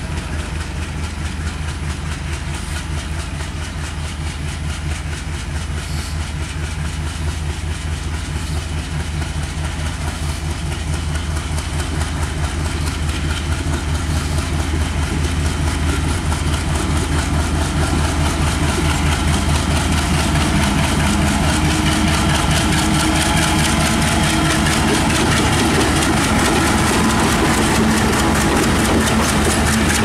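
WDM3A-type Alco diesel locomotive engine running with a steady low throb as it hauls a passenger train toward the listener. It grows steadily louder as the locomotive draws up close.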